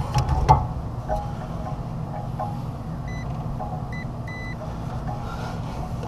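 Digital multimeter's continuity tester giving three short, high electronic beeps as its probes touch the compressor terminals and ground. Under them is a steady low hum, with a few clicks of the probes near the start.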